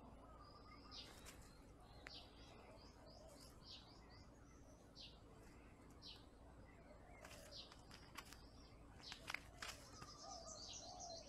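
Faint songbirds chirping: short high calls repeating every second or two, with a quicker twittering near the end. A few sharp clicks about nine to ten seconds in are the loudest sounds.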